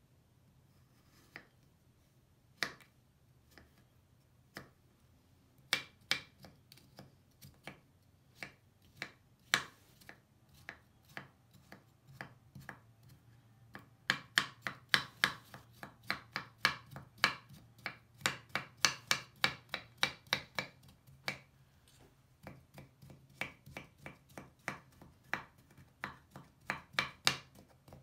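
Knife cutting through a dry, crumbly Lush bubble bar and striking the wooden cutting board: a few separate slices at first, then quick chopping of the crumbled pieces at about two strokes a second from about halfway through.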